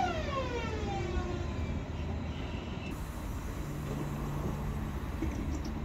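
BM 72 electric multiple unit braking to a stop: its traction motor whine falls steadily in pitch as the train slows and fades out within the first couple of seconds. What remains is a low, steady rumble from the slowing train.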